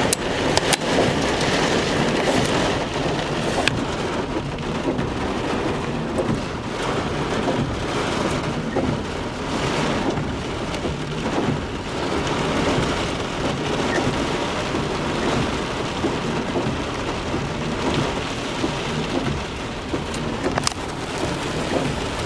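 Thunderstorm with heavy rain and strong gusty wind buffeting the microphone, a steady dense rush with a low rumble underneath. A few sharp clicks stand out, about a second in, near four seconds and near the end.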